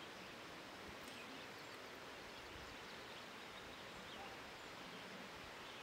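Faint, steady outdoor background noise with no distinct event.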